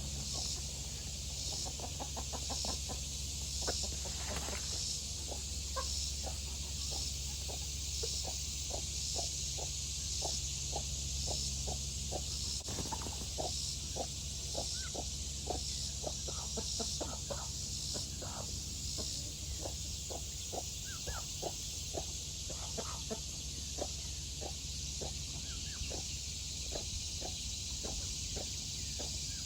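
A flock of Sapphire Sky chickens clucking: a steady stream of short, low clucks, several a second, from many birds.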